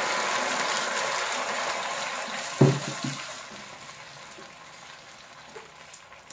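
Broccoli purée sizzling as it is poured into hot oil with fried garlic and ginger in a nonstick frying pan, the sizzle fading steadily as it is stirred with a plastic spatula. A single knock about two and a half seconds in.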